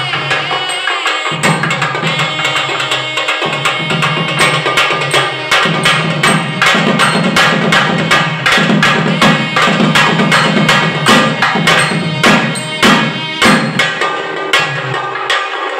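Nadaswaram playing a wavering melody over dense strokes from a thavil barrel drum and a small hand drum. A steady low drone sounds underneath and drops out briefly twice.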